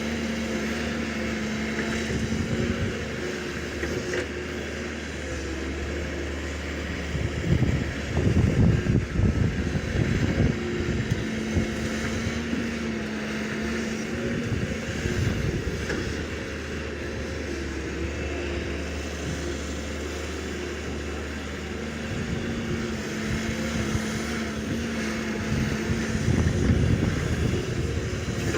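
Excavator's diesel engine running steadily, with two louder, rougher stretches: about eight seconds in and again near the end.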